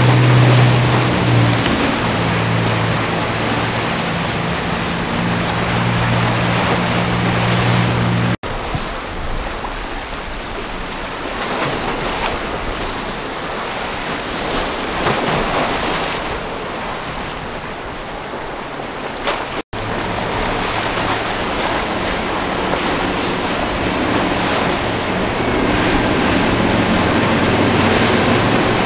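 Formula powerboats running fast through choppy water: a low steady engine drone under the rush of spray, waves and wind on the microphone. About eight seconds in the engine drone drops out, leaving only wind and water, and returns about twenty seconds in, strongest near the end.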